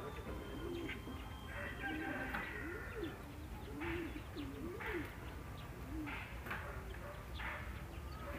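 Pigeons cooing over and over, a low coo that rises and falls about twice a second, with short higher bird chirps in between.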